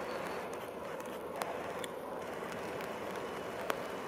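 Steady distant hum of motor traffic, with a few faint sharp clicks.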